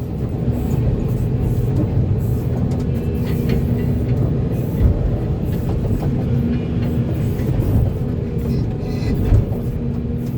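Volvo EC480D excavator's diesel engine running steadily at working revs, with a couple of short thuds about five and nine seconds in.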